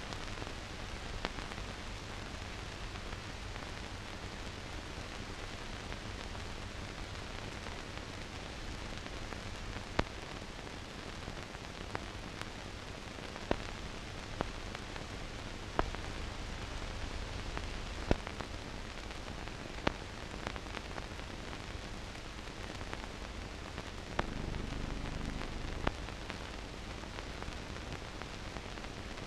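Steady hiss with scattered sharp clicks and pops, and a brief swell of low rumble late on: the surface noise of a silent archive film transfer with no recorded sound.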